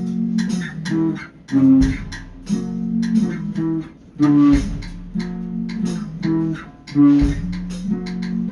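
Background music: plucked guitar over a bass line, with a deep bass note returning about every two and a half seconds.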